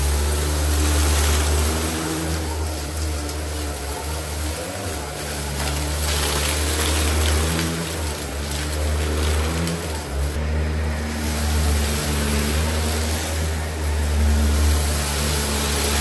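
Shark PowerDetect upright vacuum cleaner running on carpet, its motor and brushroll making a steady low hum over an even hiss as it picks up scattered sand and fluff. The pitch shifts slightly as the vacuum is pushed and pulled.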